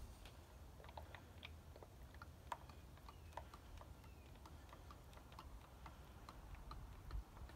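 Motor oil pouring from a plastic jug into a funnel, heard as faint, irregular ticks and pops.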